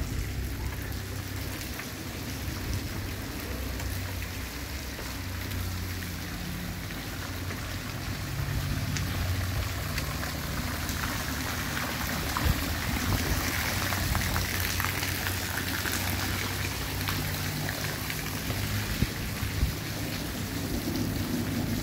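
Steady light rain falling on wet pavement and puddles, an even hiss, with a low hum underneath.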